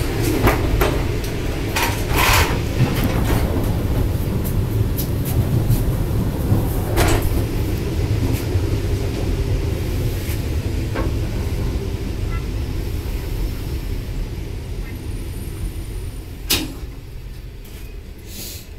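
ET2M electric multiple unit running, heard from inside the car: a steady low rumble with a few sharp knocks, fading over the last few seconds as the train slows and stops at a platform.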